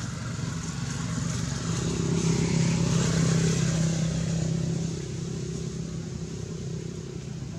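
A motor vehicle's engine running steadily, its hum growing louder about two seconds in and easing off after about five seconds, as if driving past.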